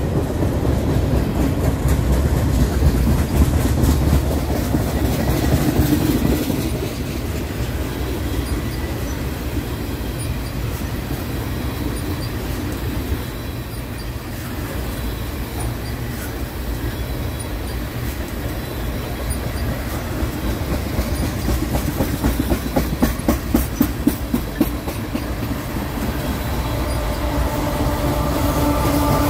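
Freight train rolling past close by: covered hoppers and tank cars with a steady rumble of steel wheels on rail. A rhythmic clickety-clack of wheelsets over rail joints is strongest a little past the middle. Near the end the sound swells as a mid-train diesel locomotive approaches.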